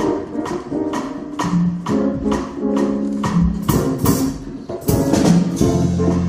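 Big band playing an up-tempo number: sustained saxophone and guitar chords over a bass line, with a steady high percussive tick about three times a second.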